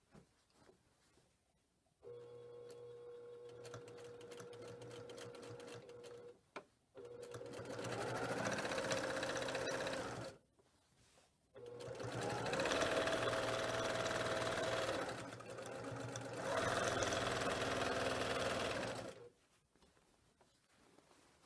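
Brother PQ1500SL straight-stitch sewing machine running during free-motion quilting. It stitches in three runs with two short stops, the first run quieter and slower, the later ones faster.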